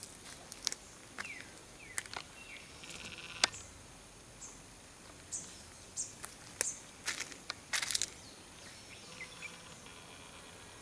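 Outdoor garden ambience with scattered short bird chirps and calls and several sharp clicks, plus a buzzy trill about three seconds in.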